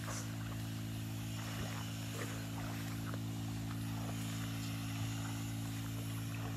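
Small 139F four-stroke engine of a portable power sprayer running at a steady speed, a constant even hum, driving the pump that feeds the spray hose. A few short faint chirps sound over it.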